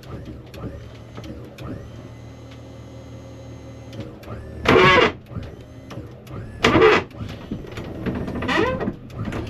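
Motorhome hydraulic slide-out mechanism working: a steady electric pump hum, with two loud harsh noises about five and seven seconds in.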